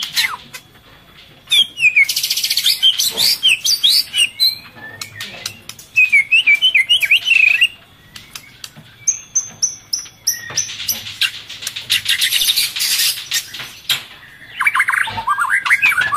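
Murai birds calling in bursts: fast series of sharp chattering notes, with long harsh hissing calls of the kind that chicks make when begging while a parent feeds them.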